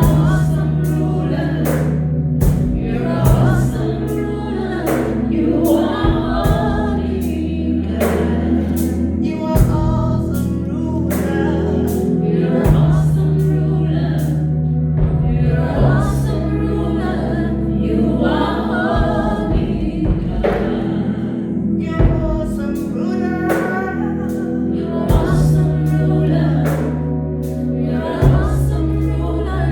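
Gospel choir singing over a live band, with a steady drum beat and held low bass notes.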